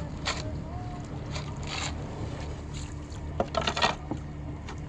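Canoe paddles dipping and splashing in lake water as an open canoe pulls away from the shore, with a louder cluster of splashes a little after three seconds in. A steady low wind rumble on the microphone runs underneath.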